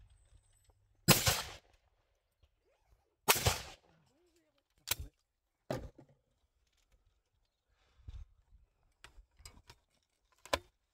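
Two shotgun shots from a Beretta 686 over-and-under, the first about a second in and the second some two seconds later. Then lighter clacks and clicks as the gun is opened and reloaded, with a sharper clack near the end.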